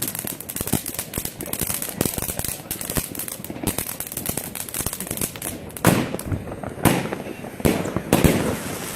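New Year's Eve fireworks and firecrackers going off all around in a steady crackle of many cracks and bangs, with several louder booms in the last few seconds.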